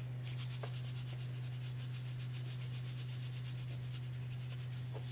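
Salt being dispensed by hand from a salt container over halved tomatoes in a cast iron pan: a fast, even rasping rattle that keeps up throughout, over a low steady hum.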